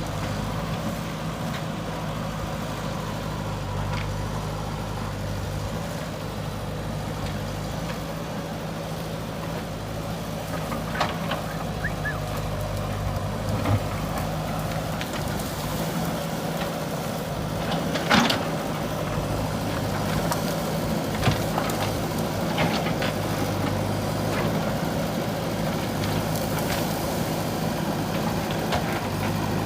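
JCB 3DX backhoe loader's diesel engine running steadily while it cuts soil, with scattered sharp clanks and knocks from the digging, the loudest a little past halfway.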